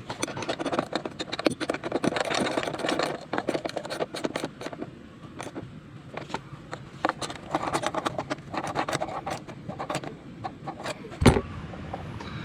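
Metal clicks, taps and scraping of tools and terminal clamps being worked on a car battery while leads are connected to it, with one loud knock near the end.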